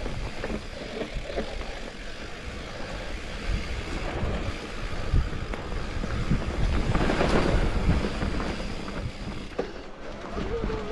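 Specialized Turbo Levo electric mountain bike riding down a dirt trail: tyres rolling over the ground and the bike rattling over bumps, with wind rumble on the microphone. It is loudest about seven seconds in.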